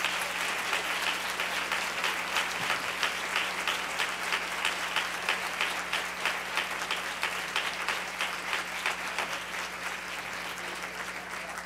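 Audience applauding, with louder claps standing out at a steady pace of about two a second, easing off near the end.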